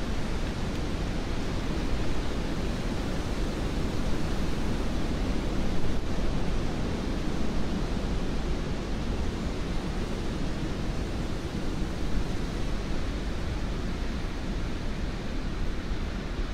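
Wind in trees: a steady rush of noise with small swells, recorded with binaural microphones.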